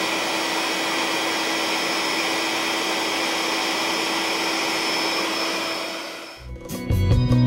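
Built-in electric air pump of a Bfull air bed running loud and steady, like a vacuum cleaner, with a steady hum in its whir. It winds down and stops about six seconds in, and guitar music starts just after.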